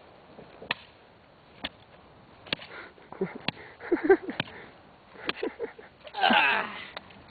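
Axe blows striking an old Game Boy lying on sand: about five separate sharp knocks over the first five seconds, with short vocal sounds between them and a loud shout near the end.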